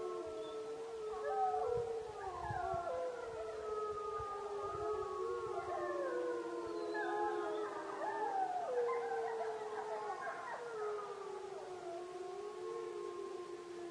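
A wolf pack howling in chorus: several long, overlapping howls at different pitches, rising and falling, with shorter yips and wavering calls mixed in.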